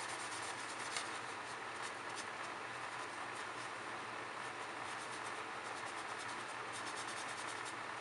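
Soft scratchy rubbing of a scrub sponge worked back and forth over a greasy ceiling fan blade, with a quicker run of strokes near the end.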